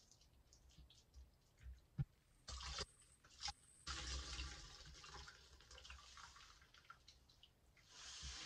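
A soaked, soapy sponge being pressed and squeezed in a sink of water: a few small drips and ticks, then from about two and a half seconds in, faint wet squishing and splashing as water and lather are wrung out of it.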